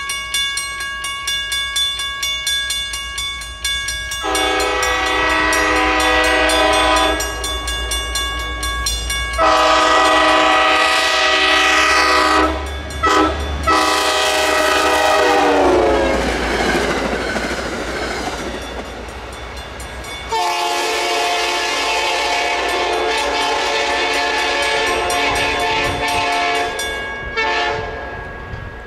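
A diesel locomotive on a commuter train sounds its horn for a grade crossing: two long blasts, a short one, then a long blast that drops in pitch as the locomotive passes. The train rumbles by with wheel clatter, and a lower long horn blast follows. A crossing bell rings steadily underneath.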